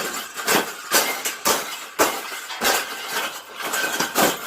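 Wire birdcage being bent and folded by hand, its metal bars clanking and rattling in an irregular series of sharp knocks, about two a second.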